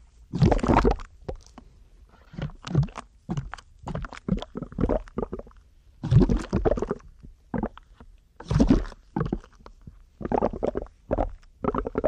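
River water sloshing and gurgling right at a microphone held at the surface, in irregular splashes with short quieter gaps between them.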